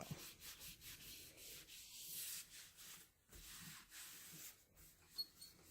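Faint, quick rubbing strokes, about five a second, thinning out after about three seconds: oiled cloth scrubbing dirt off the painted metal body of an old Singer treadle sewing machine.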